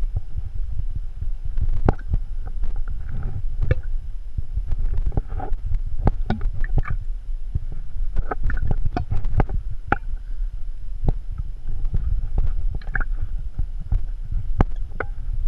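Water sloshing and clunking in a carried water bottle, in irregular bursts of knocks and gurgles as the climber scrambles over rock, over a steady low wind rumble on the microphone.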